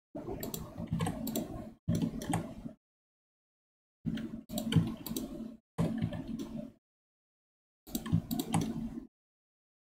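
Computer keyboard and mouse clicks in five short bursts, each cut in and out abruptly by a microphone noise gate, with a low steady hum underneath while the sound is on.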